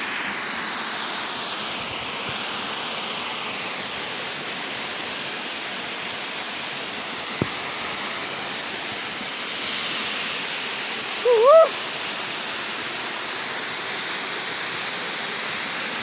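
Waterfall pouring steadily: an even, unbroken rush of falling water. About eleven seconds in, a short rising call briefly rises above it.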